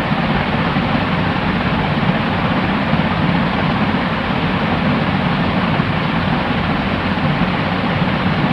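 Steady white noise, an even, unbroken hiss with a dull low rumble underneath and no high treble.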